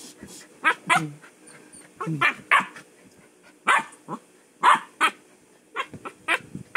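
A husky making a string of about eight short, loud barks and yips during rough hand play, some calls sliding down in pitch.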